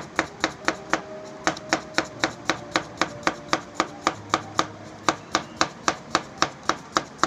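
Knife slicing a cucumber into thin rounds on a cutting board: the blade taps the board in an even rhythm, about three times a second.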